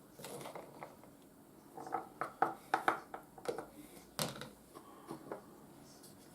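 Light kitchen handling sounds as beans are scooped into a food chopper bowl: a quick run of small clinks and knocks about two to three seconds in, then one sharper knock about four seconds in.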